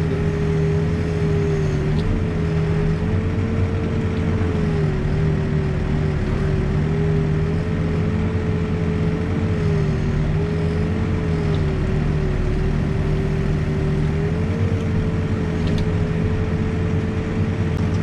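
New Holland backhoe loader's diesel engine running steadily as the boom and bucket work a footing trench, with a whine that wavers slightly up and down in pitch.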